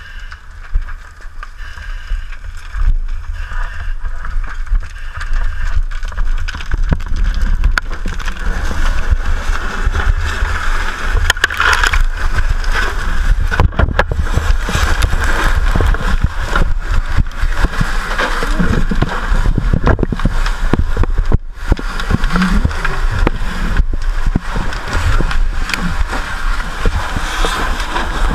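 Fire hose nozzle spraying water onto a building fire, a steady rushing hiss, with knocks and rumbling handling noise close to the helmet camera.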